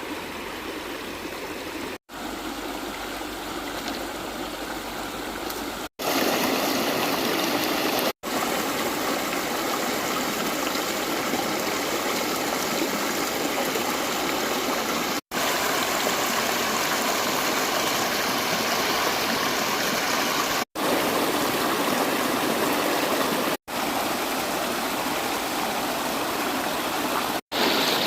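Stream water rushing steadily, cutting out for an instant several times where clips are joined. It gets louder about six seconds in.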